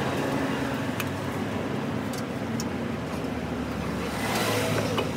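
A motor running steadily with a low, even drone and a few faint clicks.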